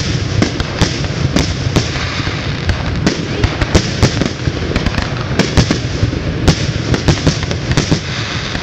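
Fireworks going off in a dense barrage: sharp bangs several times a second over continuous crackling, with no pause.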